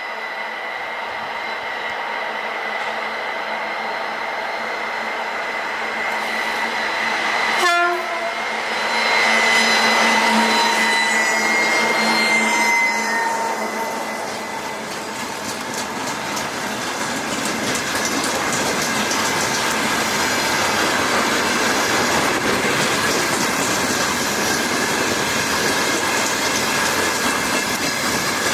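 2TE116 diesel locomotive approaching and passing, its turbocharger giving a steady high whistle over the diesel engine's running. A brief sharp sound comes about eight seconds in, and the engine and wheel noise grows louder through the second half.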